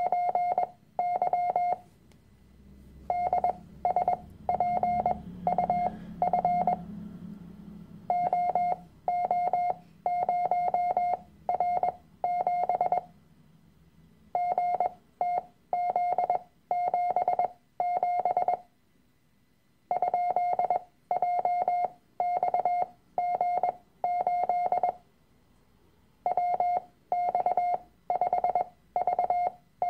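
Morse code practice tone of about 700 Hz keying random groups of letters and digits in dots and dashes, the groups separated by pauses of a second or two. The characters keep their set speed while the gaps between them are shortened, as a copying exercise.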